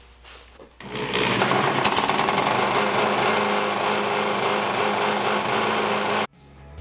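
Cutaway small single-cylinder engine running without oil, a rapid, even mechanical clatter from a connecting rod so worn that it knocks against the crankshaft. It comes in about a second in and cuts off suddenly near the end.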